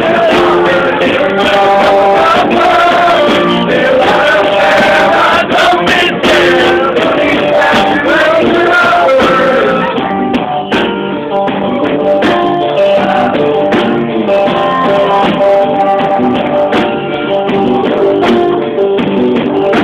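Rock band playing live, with strummed guitars; a man sings over it in the first half, and the guitars carry on alone after that.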